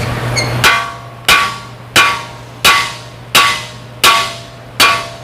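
Hammer striking metal in steady, evenly spaced blows, seven in all about 0.7 s apart, each with a short metallic ring.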